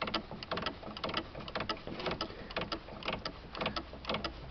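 Air and diesel spitting out of the loosened bleed fitting on top of a Renault Kangoo 1.5 dCi's fuel filter, heard as a rapid, irregular crackle of small clicks. This is the fuel system being bled of air after a filter change.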